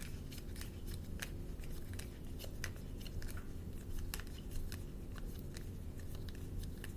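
Low steady room hum with many small, irregular clicks and ticks scattered through it, and no speech.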